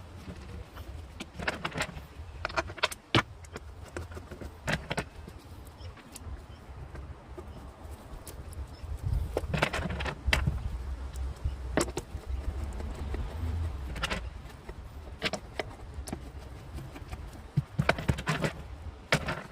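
Irregular metallic clinks and knocks of hand tools and engine parts being handled, over a low steady rumble.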